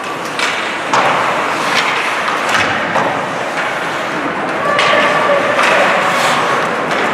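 Ice hockey play echoing in an indoor rink: a string of sharp knocks and clacks from sticks, puck and boards, with skate blades scraping the ice, over spectators' voices.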